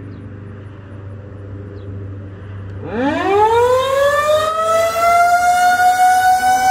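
Federal Signal 2001-130 electromechanical outdoor warning siren starting its one-minute alert test about three seconds in. Its pitch winds up quickly, then levels off into a steady, loud single tone.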